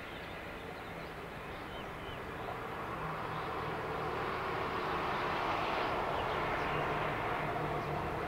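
Road traffic: a bus passing on the road, its noise swelling over a few seconds and then holding steady, with a few bird chirps at the start.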